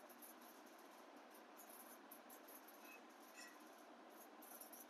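Near silence: faint room tone and microphone hiss, with one faint tick about three and a half seconds in.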